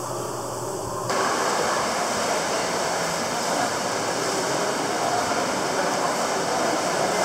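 Swimmers' arm strokes and kicks splashing in a backstroke race, a steady rush of water noise; it sounds dulled for about the first second.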